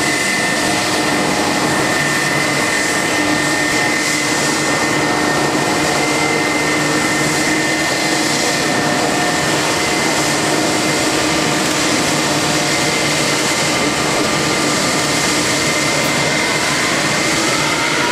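Boeing 767's twin turbofan engines at taxi power as the airliner rolls past: a steady loud rush with a high whine, the whine beginning to rise in pitch near the end.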